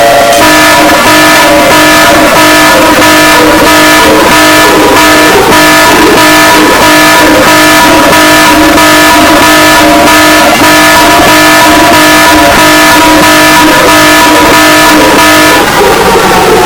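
Emergency alert system alarm, very loud and heavily distorted: a chord of several steady tones held over a harsh noisy crackle that pulses about twice a second, breaking off shortly before the end.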